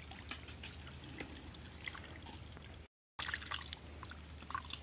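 Shallow muddy water lightly splashing and trickling as hands and legs move through it, with many small sharp splashes. The sound cuts out completely for a moment about three seconds in.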